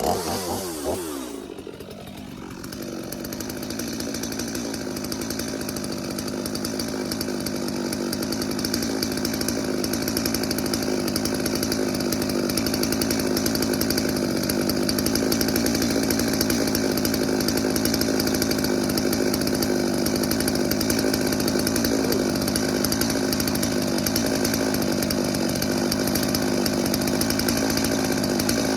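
Holzforma G255 45.4cc two-stroke chainsaw engine running: it revs down about a second in, then settles into a steady run that grows gradually louder over the following seconds and holds. The saw is being run with a newly fitted bar and chain to break them in.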